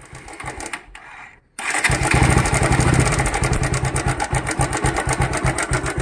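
Motorcycle engine starting about a second and a half in, then running with a fast, even beat.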